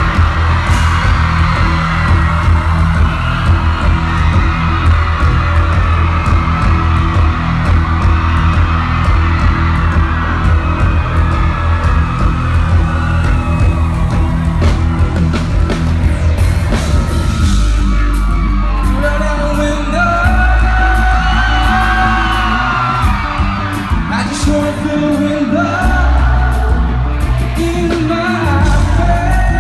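Live band with heavy bass and a male lead vocal, recorded loud from the audience, with yells over the music. About halfway through, the bass pattern changes and the sung melody comes forward more clearly.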